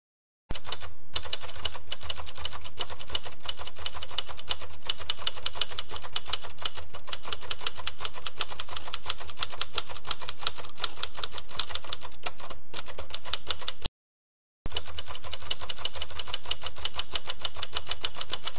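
Mechanical typewriter typing, a fast, even stream of key strikes that stops briefly about three-quarters of the way through, then resumes.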